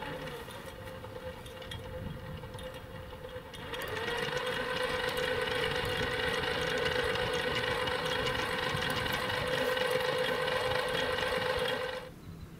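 12-volt, 240-watt electric winch motor and gearbox whining as it drives the line spool. It runs slow and faint for the first few seconds on its speed controller, rises in pitch about four seconds in, holds a steady whine, then stops abruptly near the end.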